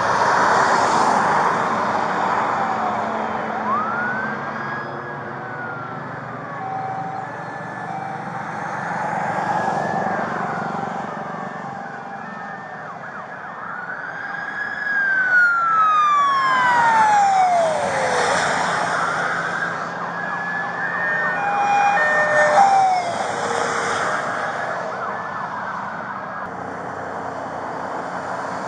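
Police car sirens wailing, several at once, with swells of vehicle noise as the cars pass. Around the middle one siren drops steeply in pitch as it goes by.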